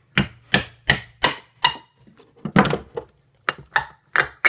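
Hammer driving a nail into a metal jar lid to punch holes: about ten sharp taps in two runs, the first five evenly at about three a second, then a short pause and a few more.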